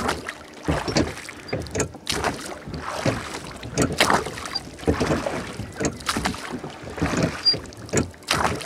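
Water splashing and slapping against a small boat, in irregular strokes about one or two a second over a low rushing noise.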